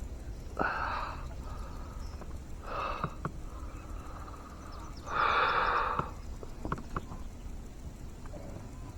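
A person breathing out heavily three times, the third breath the longest and loudest, with a few light knocks in between.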